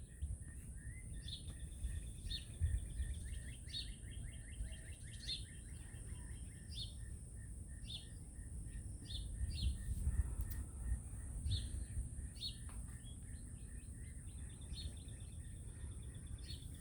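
Songbirds chirping, with short high calls and quick trilled phrases repeating every second or so, over a low steady rumble.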